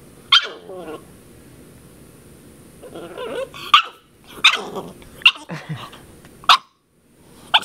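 Ten-week-old shar pei puppy barking in play: about six short, high yaps spread over the seconds, with a few wavering whiny sounds between them.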